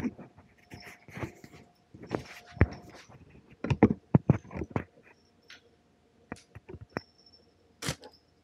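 A bump as the camera is set down, then a run of sharp knocks, taps and clatter from objects handled close by. The knocks come thick and fast for the first five seconds, then thin out to scattered taps.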